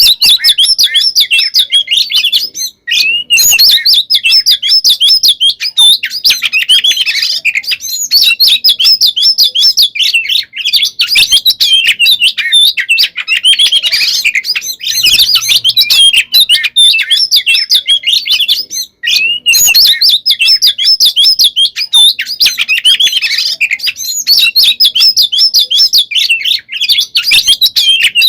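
Oriental magpie-robin (kacer) singing loud and nearly without pause: a rapid, varied run of chirps, whistles and trills in its aggressive, fighting-mode song. It breaks off briefly about three seconds in and again near nineteen seconds.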